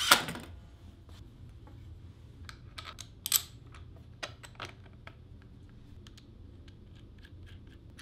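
A compact cordless driver gives a brief whir as it runs a screw into a wooden block and stops. Then come scattered light clicks and taps of plywood and metal fittings being handled, with one sharper knock about three and a half seconds in.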